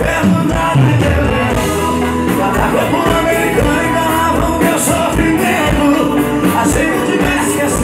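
Live sertanejo band playing through a PA: acoustic guitar, accordion, electric guitar and drums with a steady beat, with singing over it.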